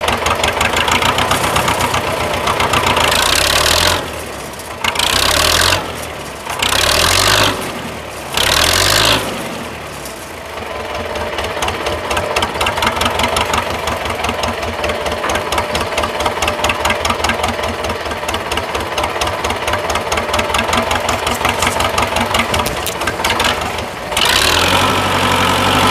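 Belarus 510 tractor's four-cylinder diesel engine working under the load of a sugarcane trailer. It runs loud at first and revs up three times in quick succession with drops between. It then settles into a steady, even beat for most of the stretch and revs up again near the end.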